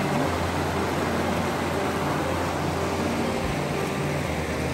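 River water rushing over rocks in shallow rapids: a steady, even hiss.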